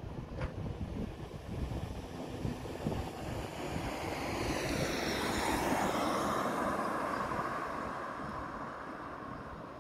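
A car drives past close by, its tyre and engine noise swelling to a peak about halfway through with a falling sweep in pitch, then fading away, over the low rumble of a garbage truck's diesel engine approaching.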